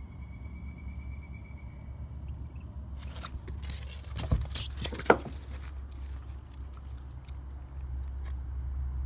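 Handling noise from a phone being swung about: a cluster of rustles and knocks a few seconds in, over a steady low hum.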